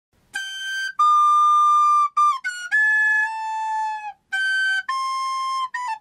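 Recorder played badly: a string of about ten held, whistly notes with short breaks between them, several cracking up into a shrill upper octave or squeaking as they change. The notes are off because of wrong fingerings.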